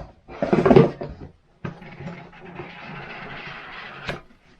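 Drone-kit packaging being handled during unboxing: a short clatter, then a steady rustle lasting a couple of seconds, ending in a click.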